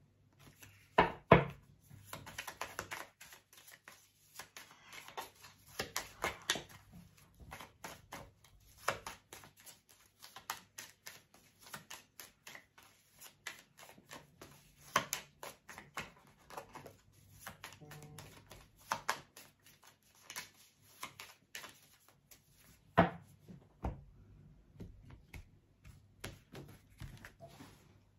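A deck of oracle cards being shuffled by hand: a long run of quick papery clicks and slides, with a few sharper knocks.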